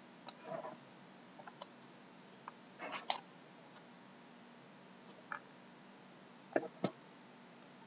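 Hands handling a shrink-wrapped cardboard card box: scattered light clicks, taps and plastic crinkles. The loudest cluster comes about three seconds in, and two sharp taps come near the end.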